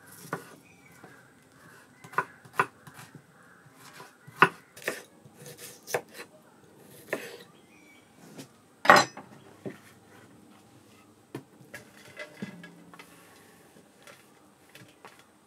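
Kitchen knife slicing shallots on a wooden cutting board: irregular knocks of the blade on the wood, with one loud knock just past halfway. Near the end the sliced onions are slid off the board into a brass bowl.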